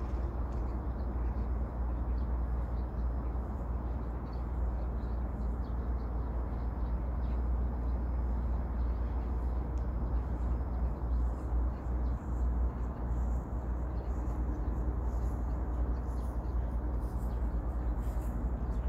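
Steady low outdoor rumble, strongest in the bass, with footsteps on asphalt coming closer in the last few seconds.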